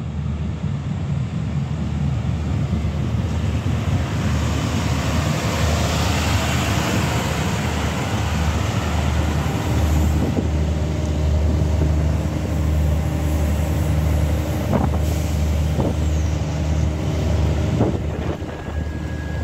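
NIR 3000 Class diesel multiple unit arriving at a station platform: a steady low diesel drone, with the wheels and underfloor machinery rushing past as the carriages run alongside. A few sharp clicks or knocks come in the second half, and a steady high beep starts near the end.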